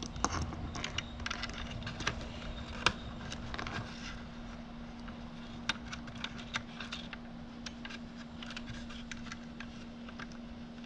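Small clicks and light taps of parts being handled as a switch is worked into a lathe's control panel, most frequent in the first few seconds, over a steady low hum.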